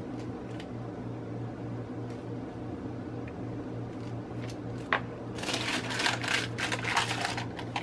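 A few light taps of a round metal cookie cutter pressing through dough, a sharper click about five seconds in, then wax paper crinkling and rustling for about two seconds as it is lifted. A steady low hum lies underneath.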